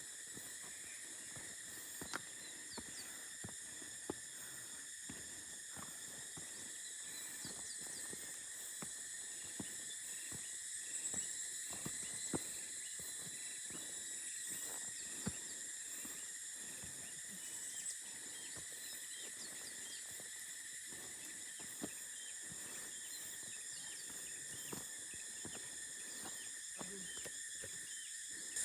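Outdoor insect chorus: several steady, high-pitched buzzing tones layered together, with scattered faint clicks and knocks.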